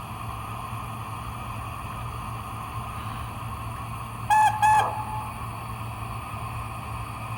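Sound system of a model steam locomotive, Tornado, sounding its startup whistle: two short toots in quick succession about four seconds in, over a steady hum.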